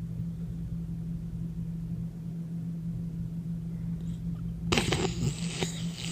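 Sleeping puggle puppy snoring over a steady low hum. About three-quarters of the way through, a louder, noisier stretch of snorting breaths begins.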